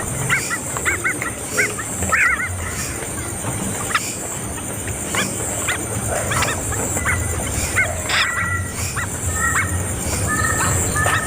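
Small birds calling: repeated short chirps and paired whistled notes, over a steady high-pitched buzz in the background.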